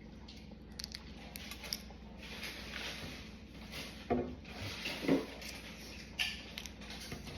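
Slime being handled and mixed with small fruit charms pressed into it: soft rubbing and squishing, with a few short, sharper sounds about four, five and six seconds in.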